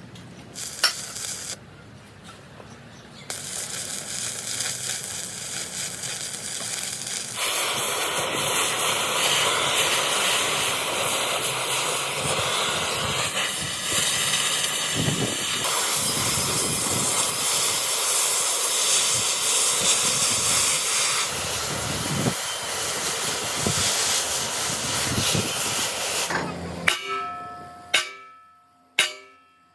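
Loud, steady hissing of compressed air or an air tool, rising in strength a few seconds in and lasting most of the time. It stops near the end, where a few short ringing strikes come about a second apart.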